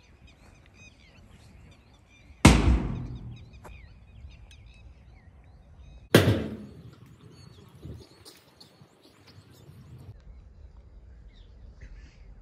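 Two loud thumps about four seconds apart, each dying away over about a second, over birds chirping in the background.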